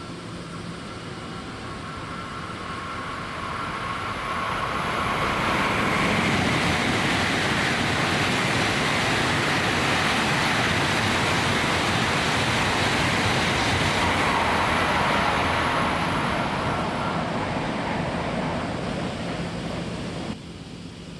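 Tokaido Shinkansen train going by on the line, a rushing rail and air noise that builds over a few seconds, holds loud for about twelve seconds with a faint whine in it, then eases off and drops abruptly near the end.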